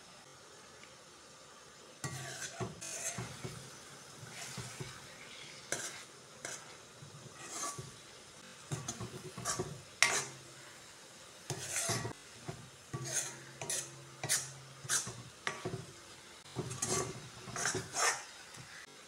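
A metal spatula scraping and clicking against a metal kadai, stirring and breaking up eggs as they scramble in a tomato masala. The strokes start about two seconds in and come irregularly, the sharpest click about ten seconds in.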